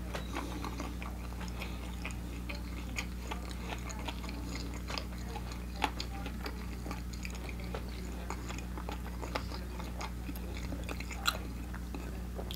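Faint close-miked mouth sounds of chewing, with scattered soft clicks and a couple of sharper smacks, over a steady low electrical hum.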